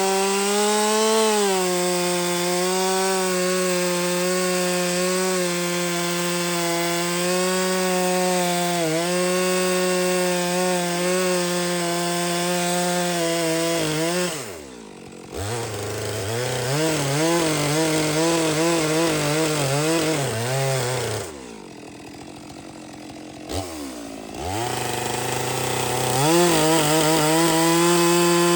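Stihl two-stroke chainsaw cutting logs at full throttle with a steady engine note under load. About halfway it drops back and runs unevenly at a lower pitch, settles to a quiet idle for a few seconds, then revs up again near the end.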